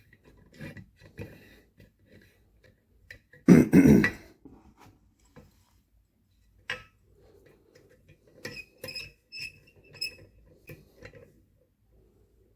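Small steel levers from a gutted MIWA PR lever lock tapping and clinking as they are handled, with a sharp tick a little before the middle and a run of light ringing clinks in the second half. About three and a half seconds in there is a brief, loud, low vocal sound.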